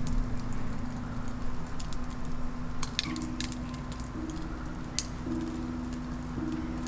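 Soft background music of held notes that change pitch every second or so, with a few sharp crackles over it.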